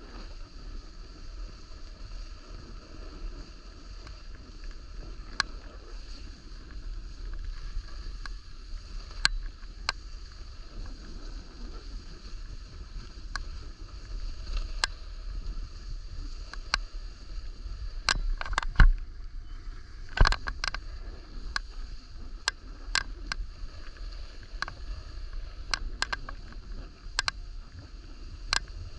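Irregular click-clack rattling over the steady low rumble of a snowboard sliding on snow. The clicks come every few seconds at first, then more often, with the loudest pair a little past the middle.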